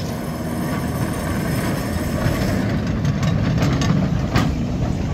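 Vintage single-deck electric tram No. 765 running along its track and passing close by: a steady rumble of steel wheels on the rails and the running gear, growing a little louder as it comes alongside, with a sharp click about four seconds in.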